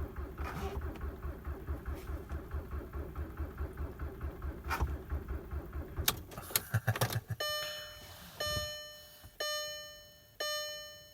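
Starter cranking the cold-soaked ALH TDI diesel in an even, rhythmic chug that does not catch, with the engine failing to start at about −20 °C, the oil thick. The cranking stops about seven seconds in, and a dashboard warning chime then rings about once a second.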